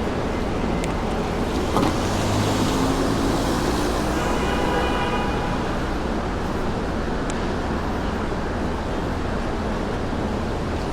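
Manhattan street traffic: a steady hiss of cars, with one vehicle passing close by about two to five seconds in, its tyres and engine swelling and fading. A brief high whine from the passing vehicle sounds near the middle.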